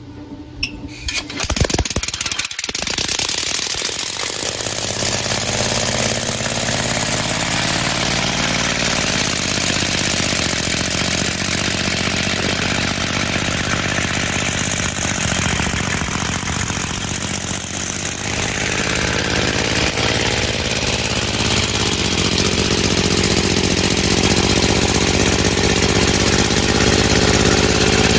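Homemade three-cylinder compressed-air engine, fed straight from the tank at about 400 PSI with no pressure regulator, starting with a few clicks and then running under load. It gives a loud, steady rush of exhaust air with a pitched running note that rises over the first several seconds as it picks up speed, then holds.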